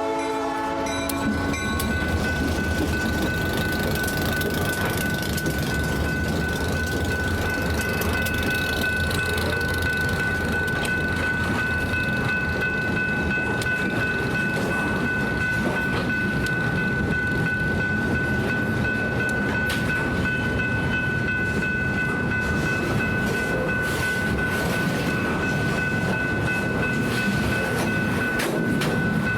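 A freight train rolling past: a steady rumble and wheel noise with scattered clicks over the rail joints and a steady high-pitched whine. A locomotive horn chord cuts off about a second and a half in.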